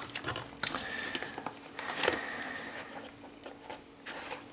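Hands handling the cardboard parts of a smartphone retail box: card sliding, scraping and tapping, with scattered light clicks and rustling, softer near the end.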